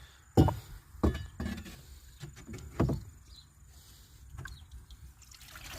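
A few dull knocks and bumps as a hand reaches into a cattle water tank to get at a trapped bird, four of them in the first three seconds.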